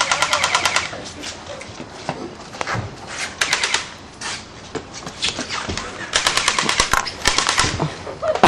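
Automatic airsoft gun firing in several bursts of rapid clicking shots, the longest bursts near the end.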